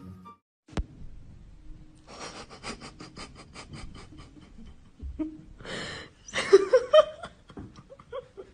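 Quick, rhythmic panting breaths, about seven a second, followed by a person laughing, which is the loudest part.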